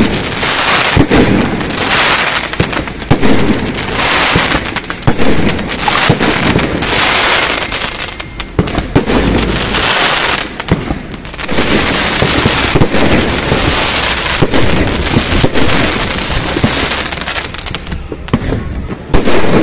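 Fireworks display going off in a dense barrage of bangs and crackling, surging about once a second, with a brief lull near the end.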